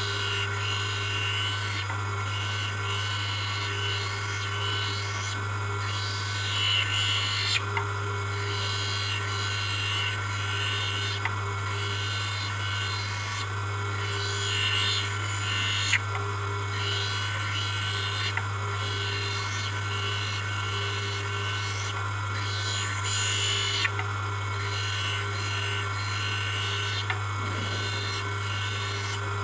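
Hand edger's motor running with a steady hum while a plastic bifocal spectacle lens is pressed against its spinning grinding wheel. The rasping grind swells and fades as the lens is turned against the wheel, with a few sharp ticks.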